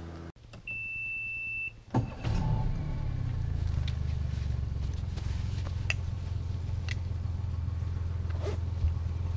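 Bass boat's outboard motor being started: a single steady warning beep about a second long, then the engine catches about two seconds in and idles steadily. A few light knocks sound over the idle.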